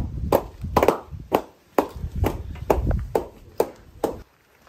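Hands clapping in a steady rhythm, about two claps a second, stopping suddenly a little over four seconds in.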